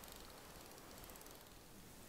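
Near silence: a faint, steady outdoor hiss with no distinct sound in it.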